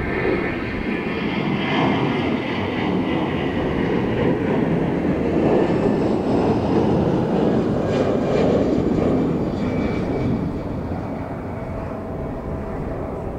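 Airbus A320-214's twin CFM56-5B turbofans at takeoff thrust as the jet lifts off and climbs away: a steady jet roar that swells to its loudest around the middle, then fades as the aircraft climbs out.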